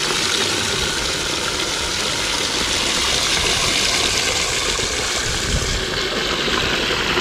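Water jetting from an outdoor spigot into the plastic dump bed of a Tonka toy dump truck: a steady splashing rush as the bed fills.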